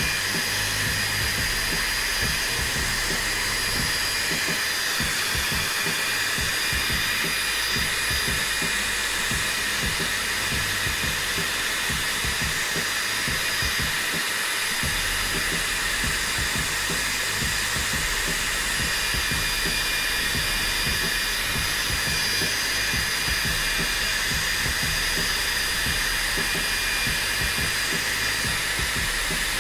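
Hand-held Tourmaline Ionic hair dryer running steadily on its first, gentle setting: an even rushing blow with a thin high whine on top.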